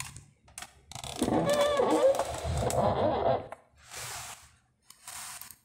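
A voice speaking for about two seconds, then two short hissing noises.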